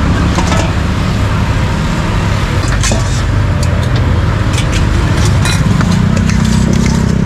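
Steady road traffic rumble, with an engine hum swelling from about halfway through. Sharp metal clinks of a ladle and steel bowls sound over it several times.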